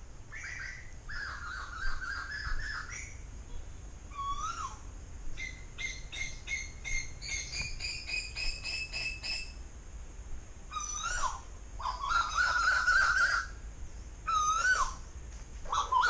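Asian koels calling: short hooked whistled notes, and runs of quick repeated notes, one of which climbs steadily in pitch.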